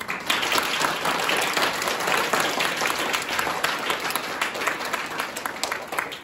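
Audience applauding, starting suddenly and beginning to die away near the end.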